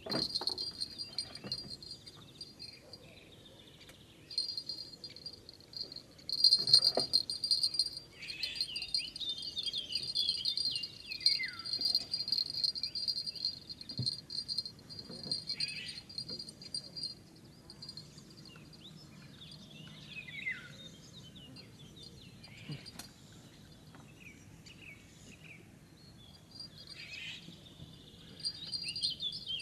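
Crickets trilling in a steady high-pitched chirr that drops out now and then, with birds singing short falling whistled phrases over it.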